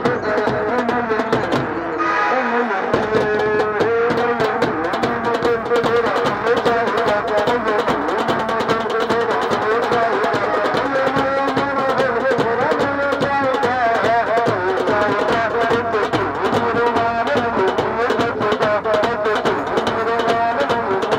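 Music with steady drumming under a wavering melody line; the bass drops out briefly about two seconds in.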